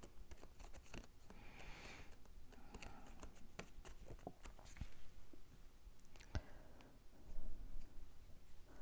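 Faint rustling and light taps of cut cardstock pieces being handled and pressed into place, with a slightly louder rustle about seven seconds in.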